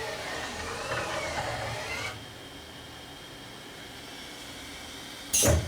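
OMNI GT-75 CNC slant gang tool lathe's axis drives whining as the slides traverse, the pitch rising and falling in arcs, then stopping suddenly about two seconds in. A steady machine hum remains, and a short loud burst of noise comes near the end.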